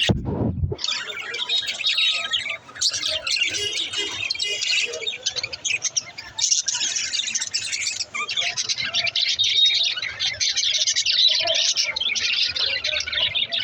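Budgerigars chattering and warbling continuously in a dense, high twittering. A brief low thump sounds right at the start.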